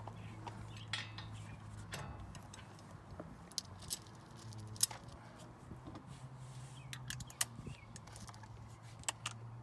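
A few sharp metallic clinks and knocks, spaced irregularly, from a wrench working the 19 mm bolts that join the lower control arm to the steering knuckle, over a low steady hum.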